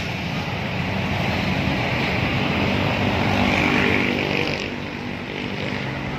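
Large truck engine running steadily, with a hiss on top that grows a little louder toward the middle and then eases off.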